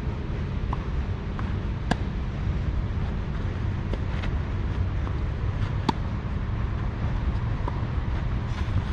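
Tennis rally: sharp pops of racket strings striking the ball roughly every two seconds, loudest about two and six seconds in, with fainter ball bounces between. A steady low rumble runs underneath.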